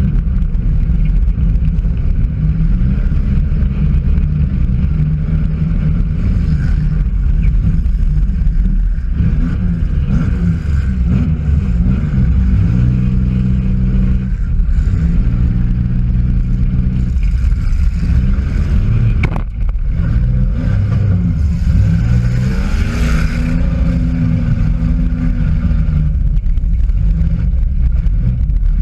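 Demolition derby car's engine heard from inside the cabin, revving up and falling back again and again under hard throttle, with a sharp knock about nineteen seconds in.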